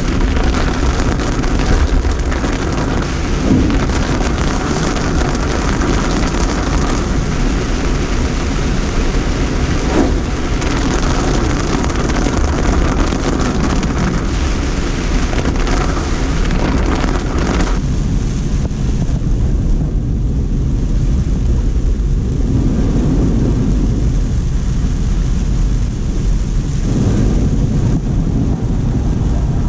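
Tropical storm weather: heavy rain hissing and gusty wind rumbling on the microphone. About 18 seconds in the high hiss drops away suddenly, and a lower rumble carries on.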